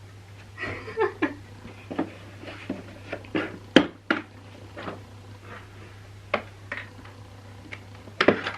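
Handling of a new cordless drill and its box: scattered clicks, knocks and short rustles. A sharper knock comes about four seconds in and another near the end, over a steady low hum.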